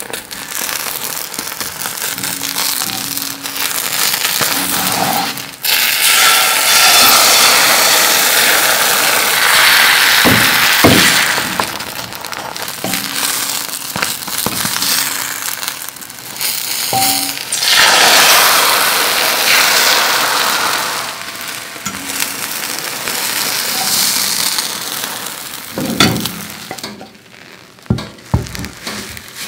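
Egg sizzling in a cast-iron skillet while a tamagoyaki-style egg roll is folded with a wooden spatula and a metal fork, with scraping and light taps of the utensils on the pan. The sizzle swells loudest from about six to twelve seconds in and again around eighteen to twenty seconds. Near the end come a few sharp knocks as the roll is pushed out of the pan onto a wooden cutting board.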